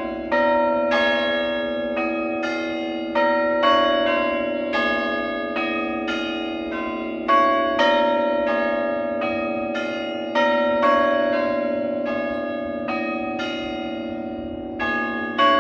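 A peal of church bells being change-rung, each bell struck in turn at about two to three strikes a second. The strikes ring on over one another in a continuous, steady round.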